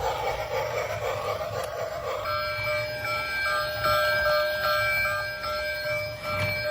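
A whirring noise for about two seconds, then an electronic warbling tone that steps back and forth between two pitches, about two to three steps a second.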